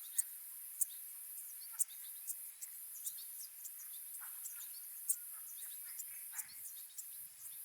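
Savanna ambience: a steady high-pitched drone of insects with many short, scattered bird chirps.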